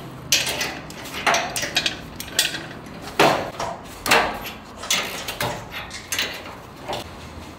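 Irregular metal clanks and knocks from hand tools on the steel bars of an ATV shipping crate as it is unbolted and taken apart; the loudest knocks come a little after three and four seconds in.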